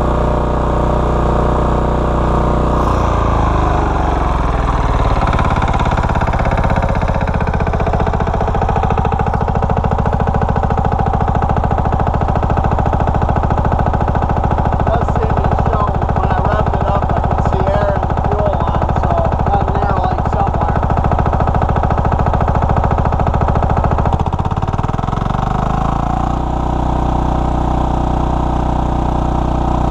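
Lombardini 15LD400 single-cylinder diesel engine of a generator set running, slowing down a few seconds in to a slow, uneven low-speed beat, then speeding back up to its steady running speed near the end.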